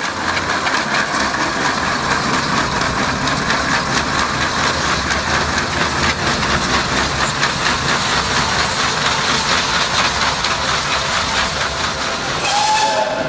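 Steam traction engine running on the move: a steady mechanical clatter and steam exhaust noise.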